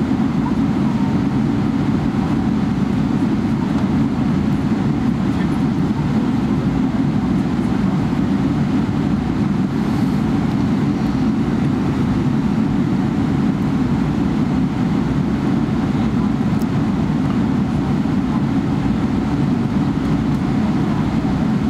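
Steady low rumble of cabin noise inside a Boeing 777-300ER airliner, holding at an even level with no rise or fall.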